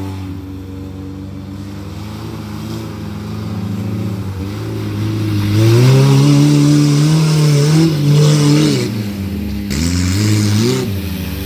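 Suzuki Samurai's engine revving as the lifted 4x4 drives through a mud pit, climbing in pitch about halfway through, easing off briefly, then revving up again near the end, with mud churning and spraying off the tyres.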